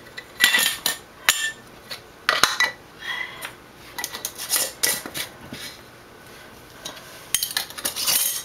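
Metal canning lids and screw bands going onto glass mason jars: clinks as the lids are set on the rims and scraping as the bands are twisted down tight, in irregular clusters with short pauses between.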